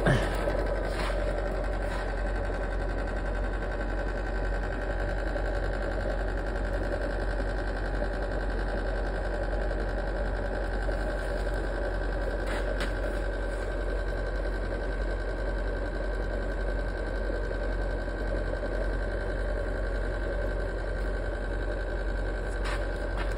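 Small electric blower running steadily, forcing air into a homemade used-engine-oil burner: a constant motor hum with a steady whine over it.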